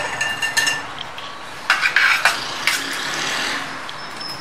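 A metal spoon scoops spiced lasoora fruits off a steel tray and clinks against the tray and the glass jar as the pickle is filled in. There are a few ringing clinks at the start, then a run of sharper knocks and scrapes about two seconds in.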